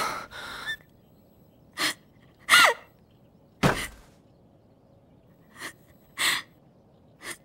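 A young woman crying: gasping, sniffling breaths in short separate bursts, one of them a brief whimper that falls in pitch.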